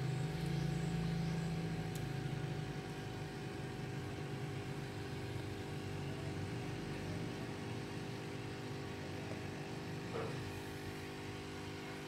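A steady mechanical hum with a low drone that eases slightly over the first few seconds, then holds even.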